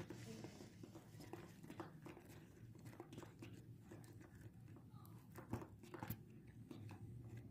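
Faint, irregular scraping and clicking of a spoon stirring a wet flour-and-water dough in a plastic tray, over a low steady hum.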